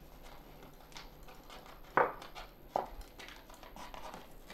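Point of a pair of scissors jabbing into the top of a paperboard juice carton to pierce a hole, with two sharp pokes a little under a second apart near the middle and fainter taps and scrapes around them.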